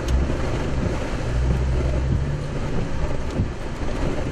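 Strong storm wind rushing against the car, with the engine and tyres running low underneath as the car backs up.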